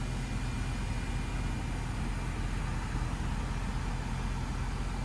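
Power sunshade of a panoramic sunroof running slowly, an even motor hum inside an SUV cabin.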